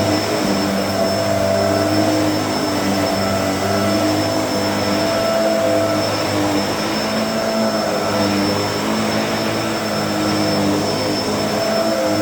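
Small vacuum cleaner running steadily while vacuuming an area rug: a motor drone with a high whine, its pitch wavering slightly.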